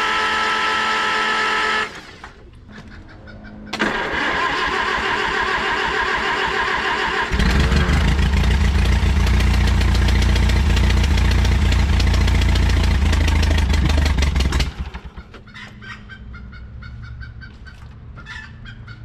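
1957 Oliver Super 55 four-cylinder gas engine being started: the electric starter whines up and cranks for about two seconds, cranks again a moment later, then the engine catches about seven seconds in and runs for several seconds before cutting out. It is a hard start with oil-fouled spark plugs, the engine running on gas poured into it.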